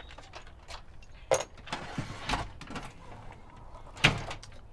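Scattered clicks and knocks from handling parts and storage bins, the sharpest about a second in and near the end.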